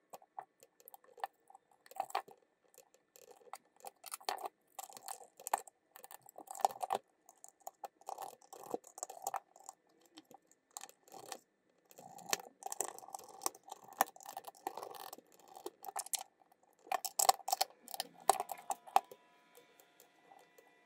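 Plastic casing and parts of a handheld inspection camera being handled and fitted back together: scattered clicks, taps and rubbing, with a busier run of clicks near the end.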